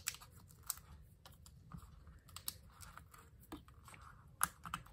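Light, irregular clicks and taps of fingernails and card stock as foam adhesive dots are stuck onto a paper card panel and pressed down, the sharpest click a little before the end.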